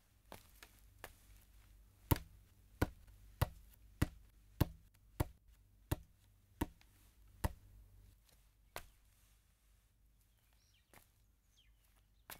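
Footsteps of a man climbing a staircase, sharp even steps about one every 0.6 seconds, spacing out and fading after about eight seconds. Faint bird chirps near the end.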